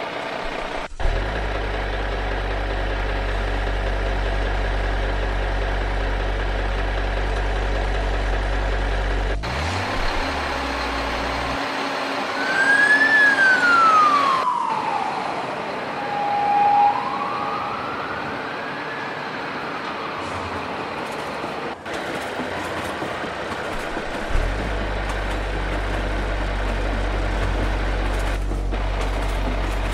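A heavy engine idling with a steady low rumble, which stops about ten seconds in. A fire engine siren then sweeps down and back up in one slow wail. The engine rumble comes back near the end.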